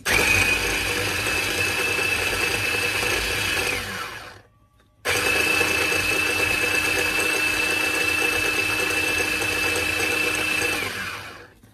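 Small electric grinder (molinito) running, grinding softened chiles with a little broth into a paste. It gives a steady whine, winds down and stops about four seconds in, starts again a second later, and winds down again near the end.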